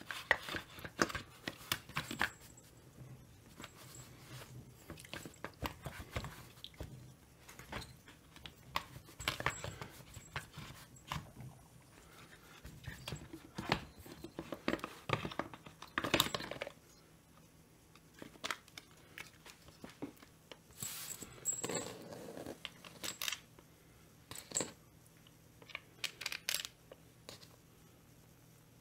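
Irregular clicks, taps and light knocks of Stihl 025 chainsaw parts being handled on a bench: the metal cylinder and plastic crankcase housing moved against each other, and screws picked up. The handling is busiest in the first half and falls quiet for a few seconds past the middle.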